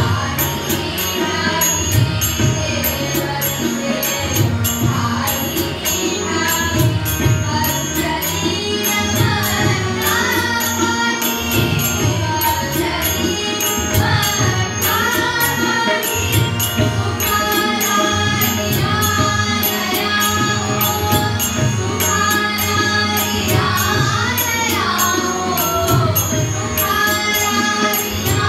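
Young female voices singing a Konkani devotional bhajan to harmonium accompaniment, over a steady tabla beat.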